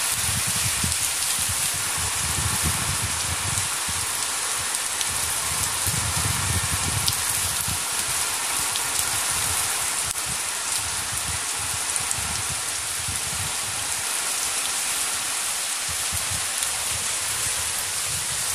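Heavy rain falling steadily, a dense even hiss, with irregular low rumbles coming and going.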